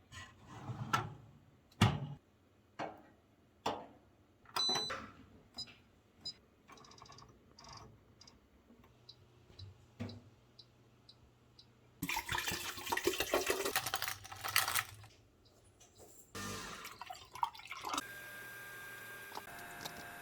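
Household handling sounds: a series of knocks and light clinks, then about three seconds of rushing water, ending in a steady hum.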